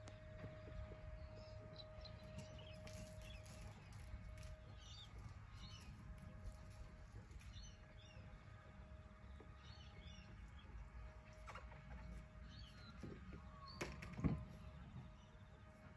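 Faint outdoor ambience: small birds chirping now and then over a low rumble and a faint steady hum, with one sharp knock near the end.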